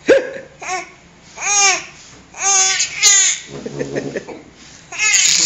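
Baby laughing in short, high-pitched squealing bursts, roughly one a second, each rising then falling in pitch.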